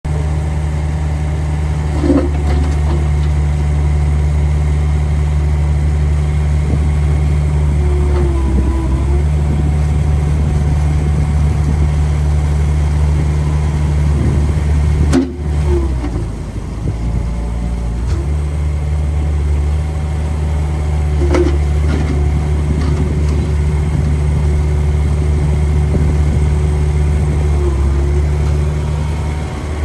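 Komatsu PC50MR mini excavator's Yanmar diesel engine running steadily, with short squeals about every six to seven seconds. About halfway through, the engine note drops for a few seconds, as if pulled down under load, then recovers.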